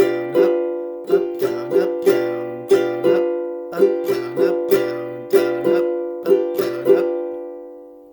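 Ukulele strumming a G7 chord in a down, down-up, down-up pattern, repeated in steady groups. The last strum, about seven seconds in, is left ringing and fades away.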